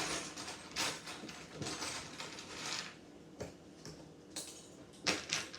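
Plastic Lego bricks clicking and rattling as pieces are handled and snapped together, in irregular short clicks and scrapes.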